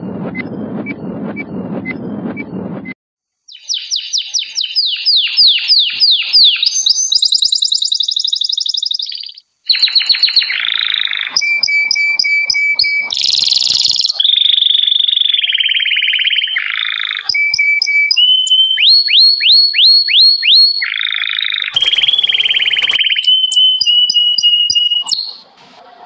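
Songbirds singing in a string of spliced clips: clear whistled phrases, fast sweeping trills and repeated chirps, each cutting off abruptly as the next begins. They are preceded for about three seconds by a countdown sound effect, a low whooshing noise with about two high ticks a second.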